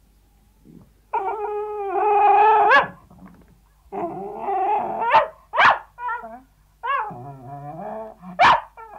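Sealyham terrier whining and yelping: a long drawn-out whine about a second in, then after a pause a run of whines broken by short, sharp yelps.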